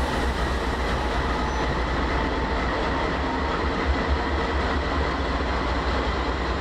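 Diesel-electric freight locomotive rolling slowly past with its engine running, a steady low rumble.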